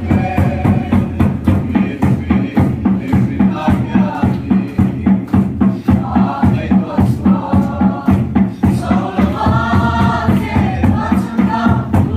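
Many voices singing together as a congregation, over a steady, driving drum beat.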